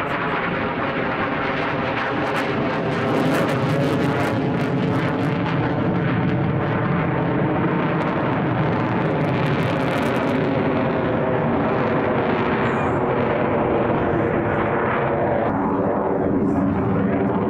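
Lockheed Martin F-22 Raptor's twin Pratt & Whitney F119 turbofan engines, a loud, steady jet noise as the fighter maneuvers, with sharp crackles at times in the first ten seconds.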